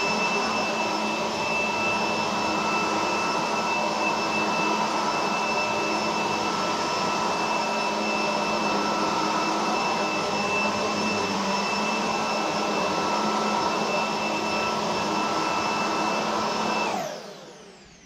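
Roidmi F8 Storm cordless stick vacuum running at max power, a steady motor whine over a rush of suction air as it cleans a rug with its squeegee and bristle brush head. Near the end it is switched off and the whine winds down.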